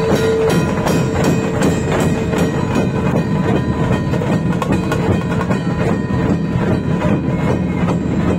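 Dhol tasha ensemble playing loud: large barrel-shaped dhol drums beaten in a fast, driving rhythm, with tasha drums rattling over them in a dense, continuous clatter.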